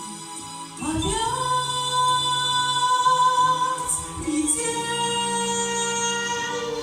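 A woman's voice singing a song with long held notes over steady instrumental accompaniment; the voice comes in about a second in.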